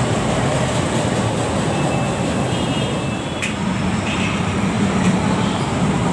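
LRT-1 light rail trains running through an elevated station: a steady rumble from the cars, with a sharp click about three and a half seconds in.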